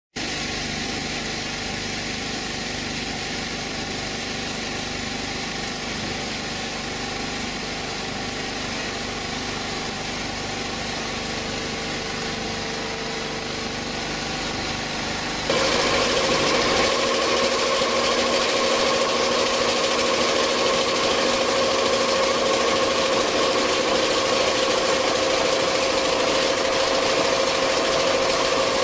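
Multi-needle quilting machine running at high speed, a steady mechanical running noise from its rows of stitching heads. About halfway through, the sound changes abruptly to a louder, brighter running with a steady whine.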